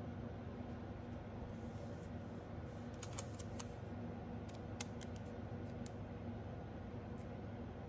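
A few faint, light clicks and taps from handling a clear plastic nail stamper, scattered through the middle, over a steady low hum.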